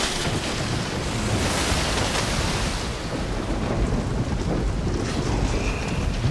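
Thunderstorm: heavy rain hissing over a low, steady rumble of thunder, the hiss swelling for a moment between about one and a half and three seconds in.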